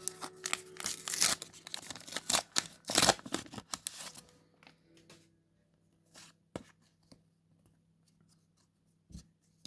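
Paper Pokémon card booster pack from a McDonald's promo set being torn open: a run of ripping and crinkling over the first four seconds, then a few faint clicks and rustles of the cards being handled.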